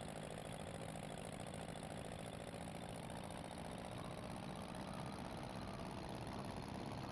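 Aircraft engine droning steadily, with no clear rise or fall in loudness.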